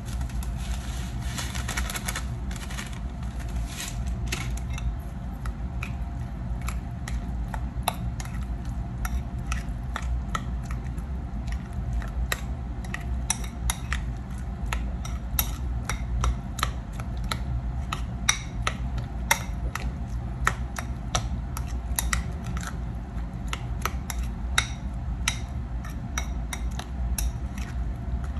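Metal spoon clicking and scraping against a ceramic bowl, at an irregular pace, while ground beef is mixed with raw eggs and seasoning. A steady low hum runs underneath.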